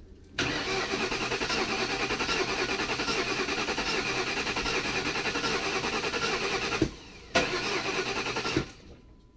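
Starter cranking the Lincoln Town Car's 4.6-litre V8 in two tries, a long one of about six seconds and then a short one, without the engine catching. It cranks but won't start after the intake manifold and thermostat housing were refitted.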